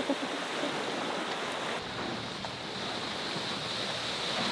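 Steady rush of ocean waves and wind, with wind buffeting the microphone.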